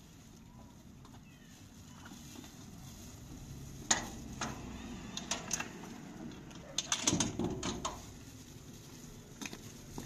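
Plastic shopping bags rustling as they are handled, with a few sharp clicks and knocks, loudest in a cluster about seven seconds in.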